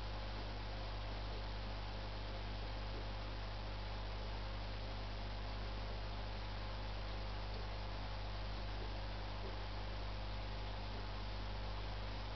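Steady electrical hum with a constant hiss behind it, unchanging throughout.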